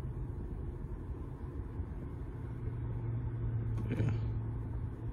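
Pickup truck engine idling steadily, heard from inside the cab as a low hum. A brief sound about four seconds in.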